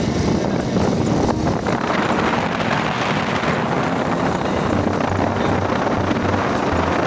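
Steady, loud wind buffeting on the microphone with a vehicle engine running underneath, as when riding on a moving vehicle.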